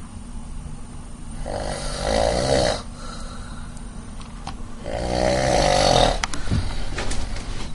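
A person snoring in a slow rhythm: two snores, each about a second long, the first about a second and a half in and the second about five seconds in, with a low rumble of breath between them.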